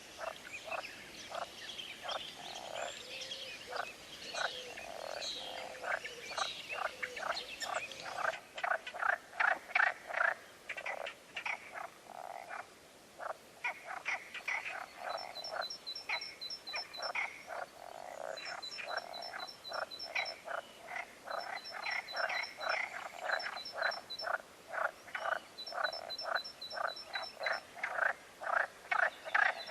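Chorus of frogs croaking, many short croaks following one another densely. From about halfway, a faint, fast high-pitched ticking comes in short runs over the croaks.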